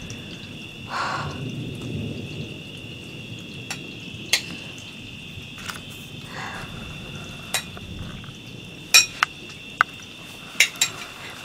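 Night insects trilling steadily and high-pitched through a thunderstorm, with low thunder rumbling in the first few seconds. A few sharp clicks come in the second half.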